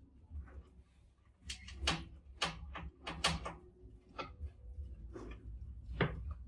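Mice scrabbling, climbing and jumping on the wire mesh and glass of a crowded tank trap: irregular sharp clicks and rattles, the loudest near the end, over a low steady hum.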